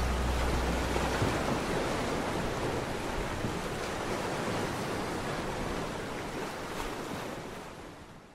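Ocean surf, an even wash of waves, with the last low bass note of the music dying away about a second in. The surf fades out near the end.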